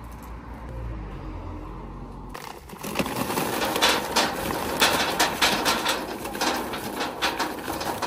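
Charcoal briquettes poured from a paper sack, clattering and rattling onto a metal barbecue grate in a dense run of knocks that starts about two seconds in, after a low rumble.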